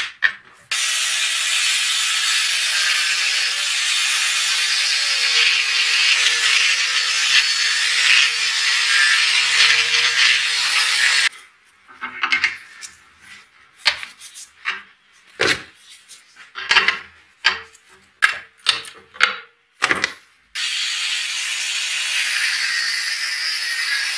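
Angle grinder cutting into a rusty steel wrench, a steady high grinding hiss for about ten seconds that stops abruptly. Then a run of separate metallic clicks and knocks from handling the workpiece and tools, until the grinder starts cutting again near the end.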